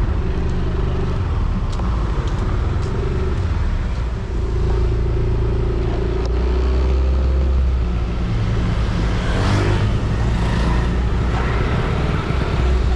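Yamaha Aerox scooter engine running at riding speed, its pitch shifting a couple of times with the throttle. About three-quarters of the way through, a brief louder rush of noise rises over it.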